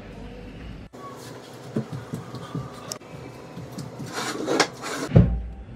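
Scattered light knocks and rustles of a person moving about and handling things in a small room, ending in a loud low thump about five seconds in.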